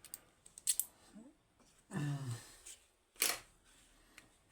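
A few light clicks and a sharp rattle of small metal lock parts being handled, with a short voiced hesitation sound about two seconds in.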